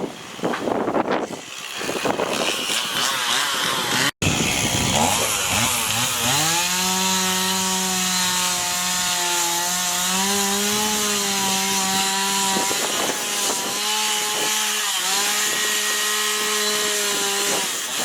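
Rushing noise for the first few seconds. Then a two-stroke chainsaw revs up and runs at high speed, its pitch dipping slightly now and then, with a brief drop near the middle before it revs again.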